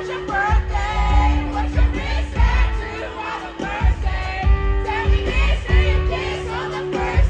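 Live band playing a country-pop song with singing over a steady drum beat.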